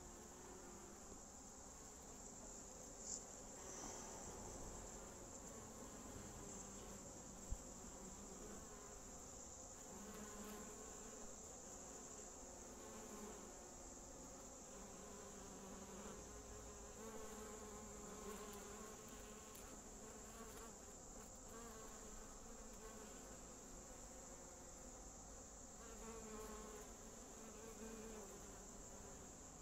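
Honeybees buzzing in flight at a hive entrance, a faint hum that wavers in pitch as single bees pass close to the microphone. A steady high-pitched whine runs behind it, and there is one sharp click about seven seconds in.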